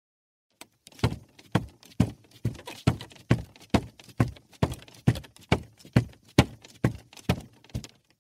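Footsteps on wooden stairs: about sixteen even steps, a little over two a second, starting about a second in and stopping near the end.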